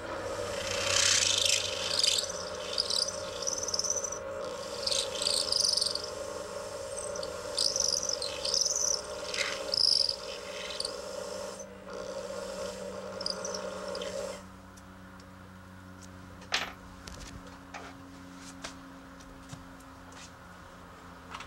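A small rotary tool runs with a steady hum while its bit grinds into acrylic with high, wavering squeals and scrapes. The tool stops about 14 seconds in, leaving a faint hum and one sharp click.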